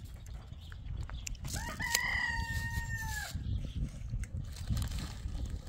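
A rooster crows once, about a second and a half in: a rising start, then a long held call.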